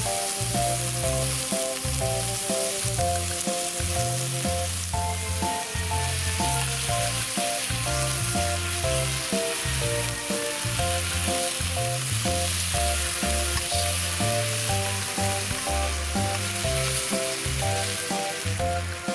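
Food frying with a steady sizzle, under background music with a melody and bass line.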